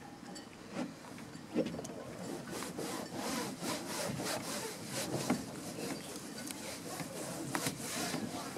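A sponge scrubbing a fuel-soaked boat seat with soap: back-and-forth rubbing strokes, a few scattered knocks at first, then quick and steady from about two seconds in.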